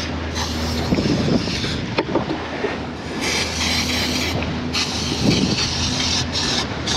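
Aerosol can of Tectyl rust preventative hissing in a few short spray bursts from about three seconds in, coating the bare cylinder bores of an outboard block against rust. A steady low hum runs underneath.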